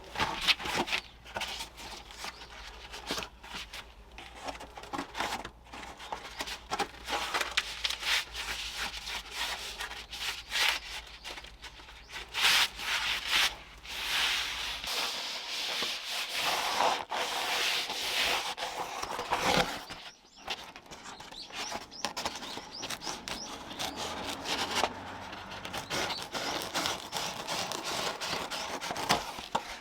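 Repeated rubbing strokes against a surface, coming in quick, irregular runs.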